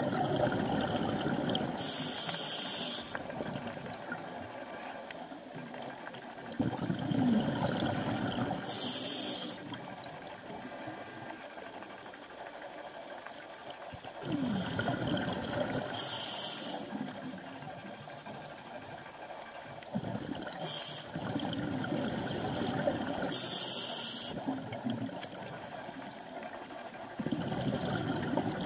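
Scuba diver's regulator breathing, heard underwater: rushes of exhaled bubbles alternate with short high hisses from the regulator, about one breath every seven seconds.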